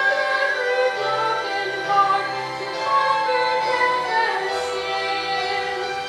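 A woman singing a slow song with long held notes over an instrumental accompaniment.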